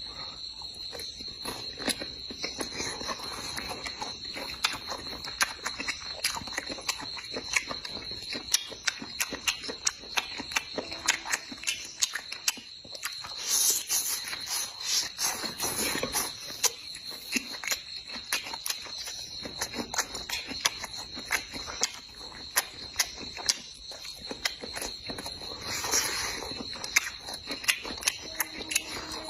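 Someone chewing big bites of squid, with many short wet smacking clicks. A steady high chirring of insects, like crickets, runs underneath.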